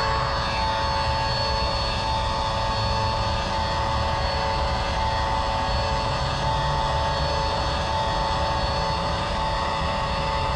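A steady electronic tone held on the note A, with fainter steady tones above and below it, over a low constant rumble.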